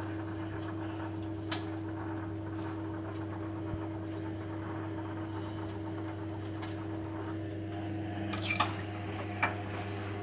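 Beko Eco Care WMA 1510 washing machine running its wash with a steady motor hum, broken by a few sharp clinks, the loudest a quick cluster of them near the end.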